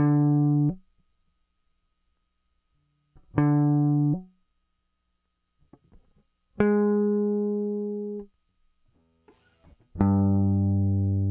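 Electric guitar, amplified through a breadboard transistor audio compressor, playing single plucked notes about three seconds apart. Each note holds a fairly even level after its sharp attack, and the first three are damped off short. A lower note starts near the end.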